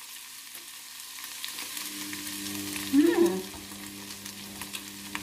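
Ground beef and carrots sizzling in a stainless steel pot, stirred with a metal slotted spoon. A low steady hum joins about two seconds in, and about three seconds in a short sliding tone rises and falls, the loudest sound here.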